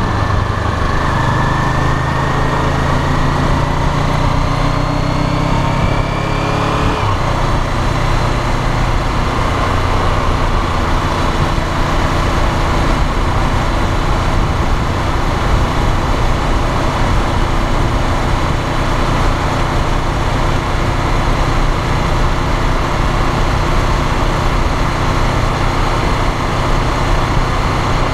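Honda CBR500R's parallel-twin engine heard from the tank, pulling with rising pitch for about seven seconds, then shifting up a gear and running at a steady cruise, with constant wind noise on the microphone.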